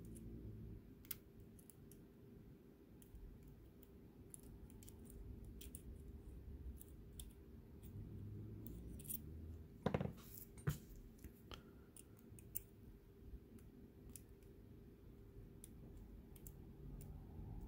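Faint metallic clicks and scrapes of a pick working the pins of a Mul-T-Lock Junior lock cylinder under a tension bar, scattered irregularly, with two louder clicks about ten seconds in.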